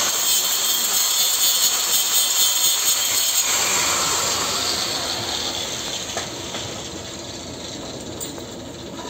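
Handheld angle grinder grinding a metal pipe joint, throwing sparks with a loud, steady hiss. About three and a half seconds in, the disc leaves the metal and the grinder's sound fades away gradually.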